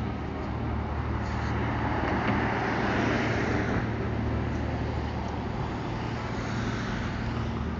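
Road traffic: a vehicle passes, swelling to its loudest about two to four seconds in and then fading, over a steady low rumble of traffic.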